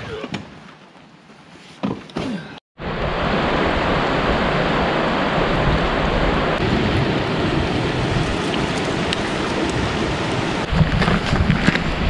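A few soft knocks of gear being handled in a car's open hatch, then, about three seconds in, an abrupt cut to the loud, steady rush of a fast-running stream close by. Near the end, footsteps crunch on a rocky trail over the rushing water.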